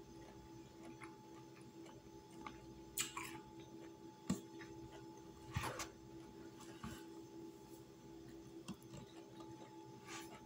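Quiet eating sounds: a fork clicking and scraping against a plastic food container, with chewing, a few sharper clicks among them. A steady low hum runs underneath.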